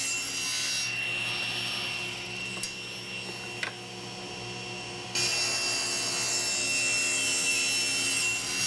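Power saw running and cutting the corners off square walnut stock. The cutting noise drops away about a second in, with a couple of light knocks, and starts up again about five seconds in.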